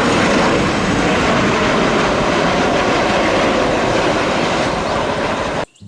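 Loud, steady aircraft engine noise, an added sound effect for a toy airplane, cut off abruptly near the end.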